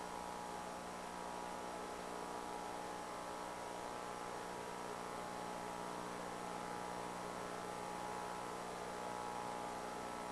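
Steady electrical hum with a layer of hiss, unchanging throughout: the recording's background noise.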